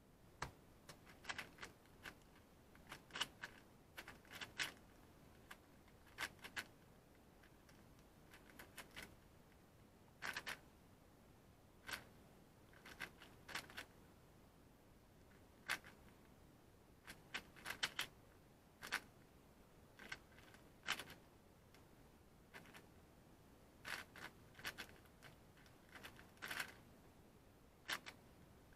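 YJ MGC 4x4 magnetic speedcube, set up tight and lubed, being turned fast during a solve: quick clusters of light plastic clicks and clacks from the layer turns, broken by short irregular pauses.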